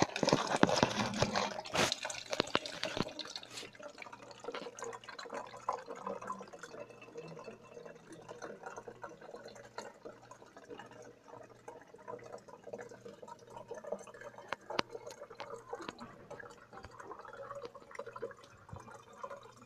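Rustling and knocking of objects being handled and set down, loudest in the first few seconds, then fainter scattered taps and rustles.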